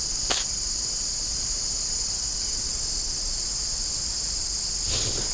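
Steady, high-pitched chorus of crickets and other insects, with a short click about a third of a second in and a brief soft rustle near the end.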